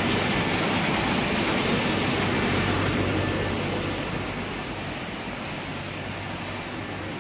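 Steady whirring din of yarn spinning frames running, with a constant low hum underneath. It grows fainter from about halfway through.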